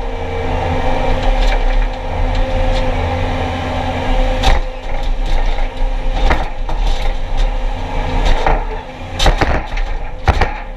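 Skid steer engine running steadily, with several sharp cracks and knocks from about halfway through, most of them near the end.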